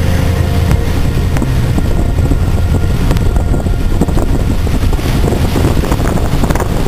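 Strong wind buffeting the microphone over a steady low rumble and the wash of the sea.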